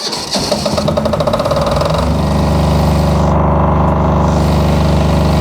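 Generator's electric starter cranking the engine for about two seconds on a freshly fitted battery, then the engine catches at once and settles into a steady run.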